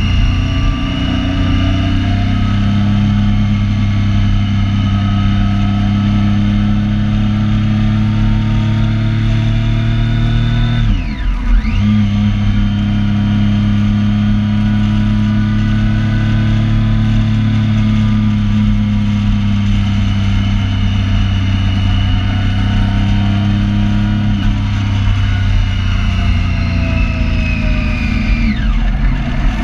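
Triumph Street Triple 675's three-cylinder engine running at a steady highway cruise, with a rushing hiss over it. About eleven seconds in the engine note drops sharply and picks straight back up, and near the end it falls away as the throttle is rolled off.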